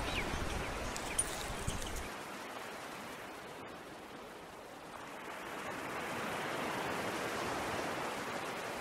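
Water running over stones in a shallow stream, a steady rushing that eases a little in the middle and swells again. Wind rumbles on the microphone in the first two seconds.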